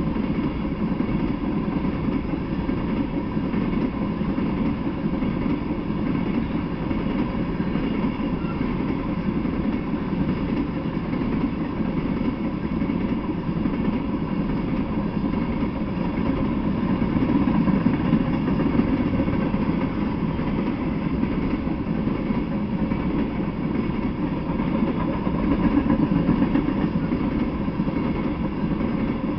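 Freight train of tank cars rolling past: a steady rumble of steel wheels on rail that swells a little twice in the latter half.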